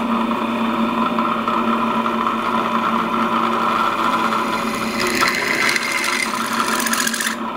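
Drilling machine running with a steady hum as a freshly hand-ground twist drill bores into thin steel tube. About five seconds in, a harsher, higher hiss of the bit cutting the steel joins the hum and cuts off just before the end.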